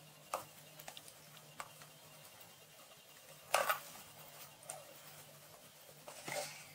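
Quiet room tone with a faint steady low hum and a few small clicks. About three and a half seconds in comes a short breathy burst of air from a person, and near the end a softer one.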